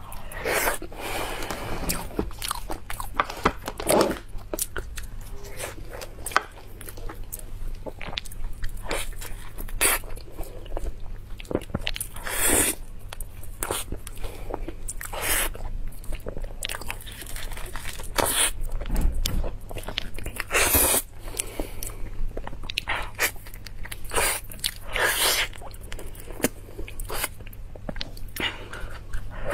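A person biting and chewing soft durian flesh, with many irregular mouth clicks and smacks throughout.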